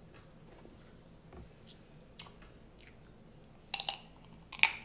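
Eating sounds: faint chewing, then two loud crunching cracks near the end, a little under a second apart, as a snow crab leg shell is bitten.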